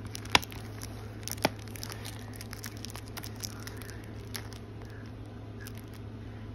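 Handling noise from a plastic DVD case and the phone filming it: two sharp clicks in the first second and a half, then lighter taps and rustles, over a steady low hum.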